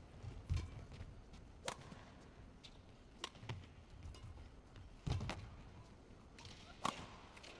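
Badminton rally: sharp cracks of rackets striking the shuttlecock, one about every one and a half to two seconds, with faint low thuds of footwork on the court.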